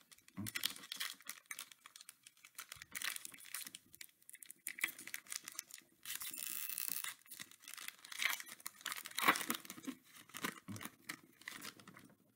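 Plastic wrapper of a trading-card pack crinkling and crackling in the hands as it is torn open. There is one steadier tear lasting about a second, some six seconds in, and loose cards rustle against each other.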